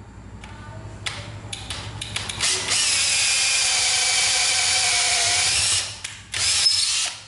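National cordless drill boring a 10 mm hole in a wooden block: a few short clicks, then the motor runs under load for about three seconds, pauses briefly, and runs again for about a second near the end.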